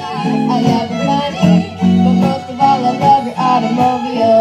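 Fiddle and guitar playing an instrumental passage of a country song. The fiddle carries the melody with slides between notes over strummed guitar chords.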